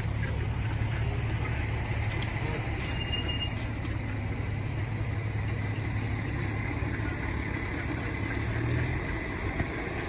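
A motor vehicle's engine running with a steady low hum that stops about nine seconds in. A brief high squeak sounds about three seconds in.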